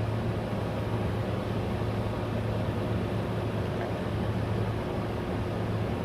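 Ausoqe percussion massage gun running steadily at speed 6: a continuous low hum.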